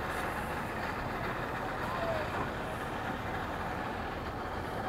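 Steady background of vehicle and boat engine noise at a boat ramp, an even rumble and hiss with no single engine standing out.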